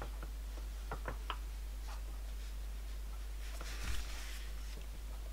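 Light metal clicks of needle-nose pliers placing tiny pins into the holes of a small axle box cover, three close together about a second in. About four seconds in comes a soft knock and short rustle as the part is set down on the rubber bench mat, over a steady low hum.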